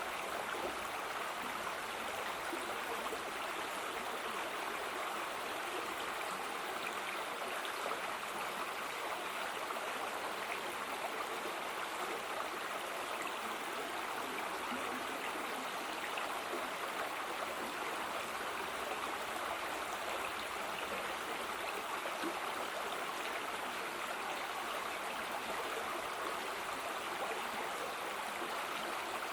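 Mountain stream water running steadily over rocks.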